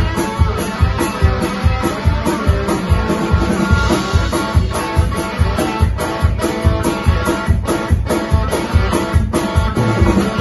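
Live blues-rock instrumental: a banjo-style guitar with a round metal body, plucked in a driving rhythm over a steady low thumping beat of about three beats a second.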